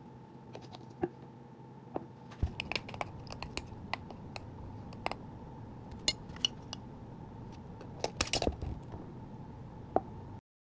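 Irregular clicks, taps and knocks of kitchen items being handled, over a steady low hum. The sound cuts off suddenly near the end.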